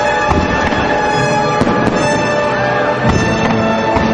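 Fireworks display going off over loud music with long held notes, with a couple of sharp bangs about a second and a half in.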